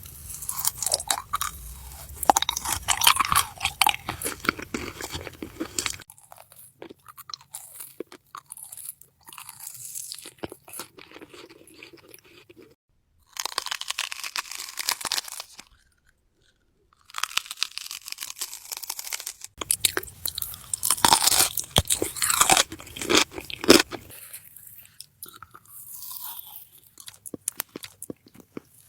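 Close-miked mukbang eating: crunchy bites and chewing of food, in a run of separate clips that change abruptly several times, with a brief silent gap a little past halfway.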